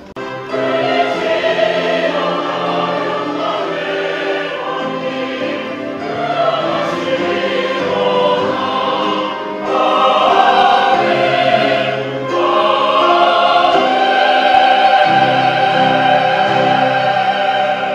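A church choir singing a sacred anthem in parts, accompanied by a small string ensemble. The music swells louder about ten seconds in.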